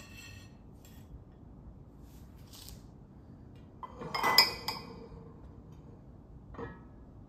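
Kitchenware being handled: a bread knife set down on a wooden chopping board and a glass cake stand picked up. There are a few light ticks, then one sharp, ringing clink about four seconds in, and a softer clink near the end.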